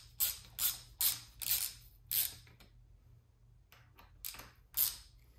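Hex tool tightening the 4 mm clamp bolts on the bottom of a billet twist-throttle housing, snugging them down: a run of short sharp clicks, about six in quick succession, a pause, then three more.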